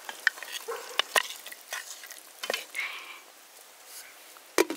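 Wooden spoon stirring chicken pieces in broth in a metal cooking pot, with scattered clicks and knocks of spoon against pot. A louder knock near the end as the pot's glass lid is handled.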